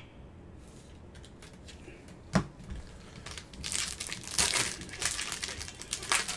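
A trading card pack's wrapper crinkling and crackling as gloved hands handle and open it, with one sharp tap about two and a half seconds in.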